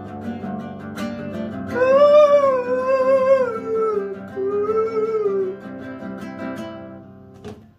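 Classical guitar playing picked chords, with a man's wordless sung melody held over it from about two seconds in until about five and a half seconds. The guitar then fades out, with a faint click near the end.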